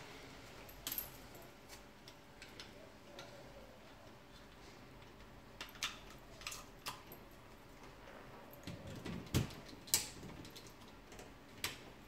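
Vintage motion light-up waterfall picture running: a faint steady hiss with scattered short, sharp high clicks or chirps at uneven intervals, the strongest a little after nine seconds in, again at ten seconds and near the end.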